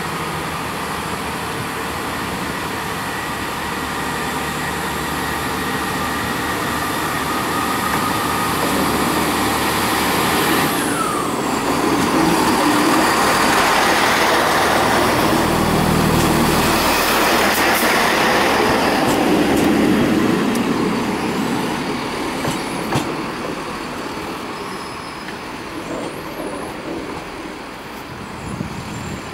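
Class 158 diesel multiple unit running past along the platform, its diesel engine and wheels on the rails swelling to the loudest point midway, then easing off. A short falling squeal comes about eleven seconds in.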